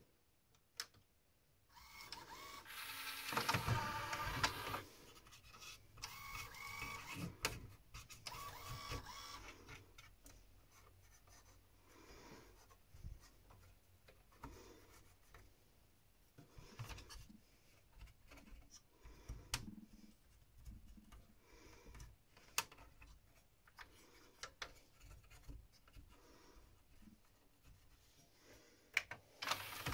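Mechanical whirring and clicking from the exposed loading and disc mechanism of a Pioneer CLD-2950 LaserDisc player. It comes in louder spells over the first ten seconds, followed by lighter clicks and rubbing as the gears are worked by hand.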